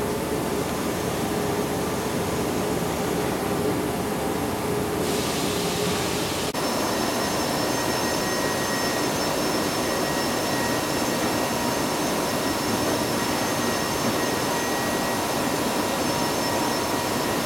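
Steady industrial machine noise of an HP Scitex TJ8300 inkjet press running: an even whir with several steady high tones. About six and a half seconds in the sound changes abruptly; before that it is a similar steady factory machine hum.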